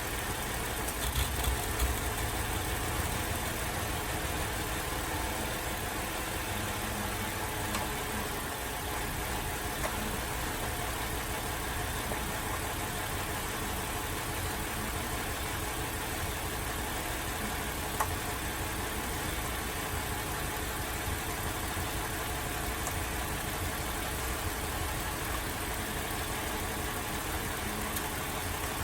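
Holden Alloytec V6 idling rough with a misfire, the owner's diagnosis being a failed number 5 coil pack, while the coil packs are unplugged one at a time. A few louder thumps come about a second in, and a single sharp click about two-thirds of the way through.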